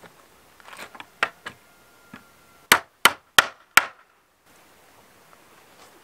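Hammer striking a wooden frame: four sharp blows in quick succession, about a third of a second apart, after a few lighter knocks.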